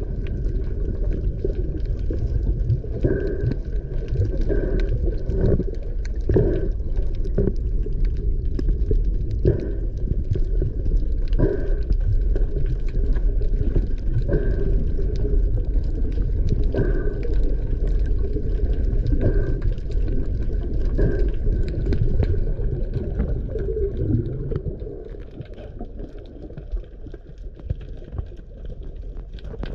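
Muffled underwater noise picked up through a camera's waterproof housing: a steady low rumble of water moving past, with a gurgle or knock every second or two. It turns quieter about 25 seconds in.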